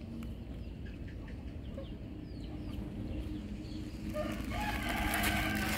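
A rooster crowing, starting about four seconds in and lasting over a second, after a few faint short chirps.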